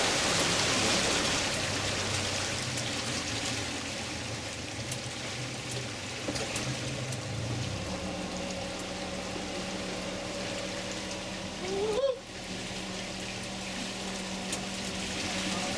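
Water splashing and trickling along a tour boat's hull, with the boat's motor running low underneath and changing its note about eight seconds in. A short rising squeak comes about twelve seconds in.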